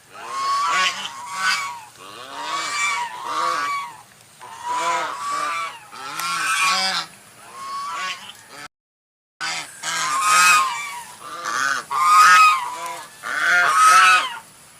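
White goose honking over and over, the loud nasal honks coming one after another and often in quick pairs. There is a brief dead-silent break a little past the middle.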